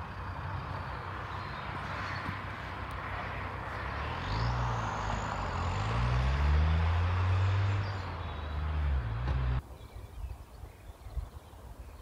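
A road vehicle driving past, its tyre noise and engine swelling as it comes closer. The engine's pitch climbs and drops, as with gear changes, and it is loudest about six to seven seconds in. The sound cuts off suddenly at about ten seconds, leaving faint outdoor background.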